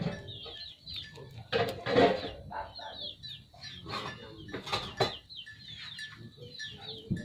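Chickens: a steady stream of high, quick peeping chirps from chicks, with a few louder clucking calls about two seconds in and again near five seconds.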